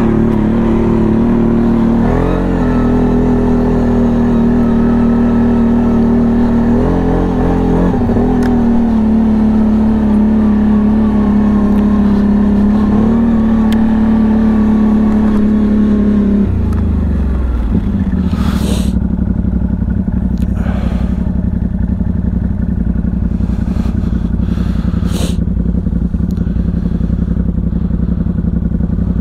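CFMoto CForce 1000 ATV's V-twin engine running under steady part throttle with small rises and dips in revs, then dropping to a lower, steady speed a little past halfway. A few brief scraping sounds come through near the end.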